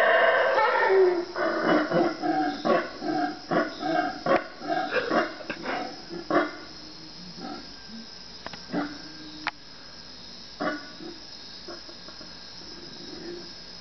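Howler monkeys calling at night. A loud, drawn-out roar in the first second breaks into a rapid run of short calls, which thin out and fade to a few scattered calls in the second half. A steady high buzz of insects runs underneath.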